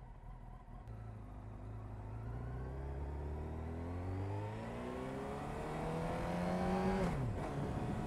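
2000 Honda CBR929RR Fireblade's inline-four engine, breathing through an Erion Racing full exhaust, accelerating hard. Its note rises steadily for several seconds, then drops sharply near the end.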